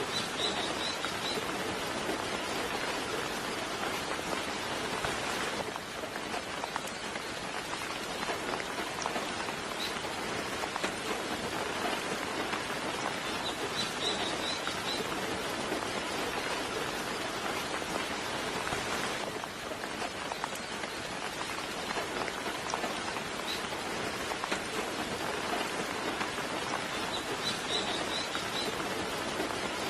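Steady soft rain falling, an even patter with no thunder. A bird gives a short burst of high chirps three times: at the start, in the middle and near the end.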